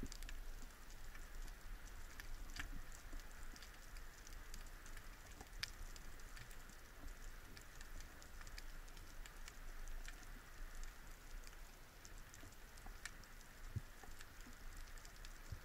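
Faint underwater ambience: scattered small clicks and crackles over a steady low rumble.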